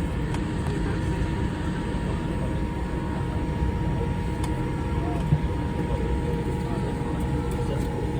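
Steady cabin rumble inside a Boeing 787 on the ground after landing, with a constant hum and faint passenger chatter underneath; a single sharp click about five seconds in.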